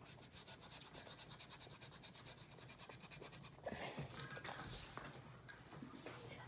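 Graphite pencil scratching on paper in rapid back-and-forth strokes, as in shading or scribbling, followed about four seconds in by a few louder rubbing strokes across the paper.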